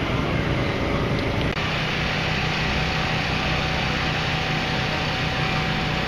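Steady mechanical drone, like an engine running, with a low hum under a steady hiss. It dips briefly about a second and a half in, at an edit.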